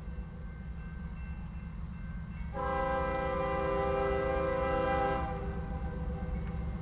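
Diesel locomotive horn sounding one long blast of about two and a half seconds, beginning about two and a half seconds in, as the train approaches the grade crossing. A low rumble runs underneath. The horn belongs to the crude oil train's lead unit, a GE ES40DC.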